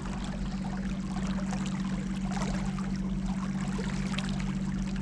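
A boat's motor running at a steady speed, with water rushing and splashing along the hull.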